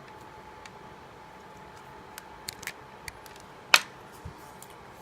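Scattered small clicks and taps from a plastic flip phone being turned over in the hands, about half a dozen, the loudest sharp click a little before the end. A faint steady hum underlies them.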